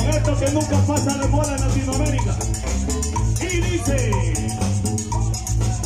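Live cumbia band playing loudly over a PA: a heavy bass and conga pulse under a melody line, with a steady shaker rhythm on top.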